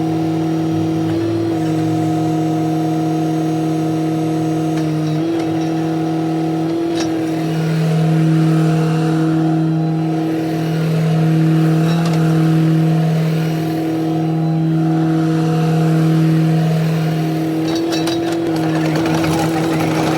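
Kubota KX155 mini excavator's diesel engine running at a steady speed, swelling and easing in loudness several times in the second half as the machine is worked.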